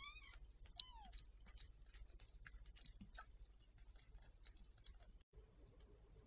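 Mother cat licking and chewing at her newborn kitten's amniotic sac: faint, scattered small clicks and smacks, with two brief high mews near the start.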